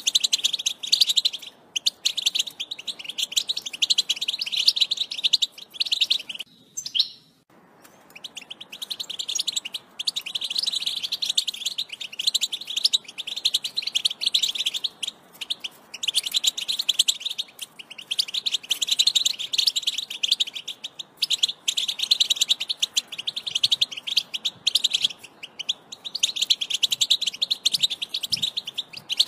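European goldfinch song: long runs of rapid twittering notes with short breaks between phrases, and one longer pause about seven seconds in.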